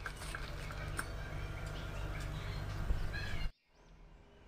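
Birds chirping over a steady low hum, cut off abruptly about three and a half seconds in, then fading back in.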